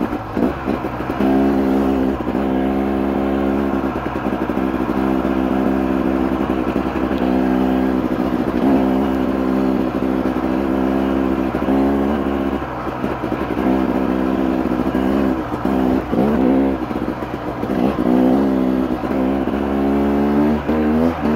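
Dirt bike engine running under way at a steady throttle, its note dipping and swooping back up several times as the throttle is eased and reopened.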